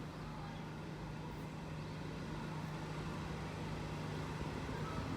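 Steady low rumble of distant road traffic, with an even, unchanging hum throughout.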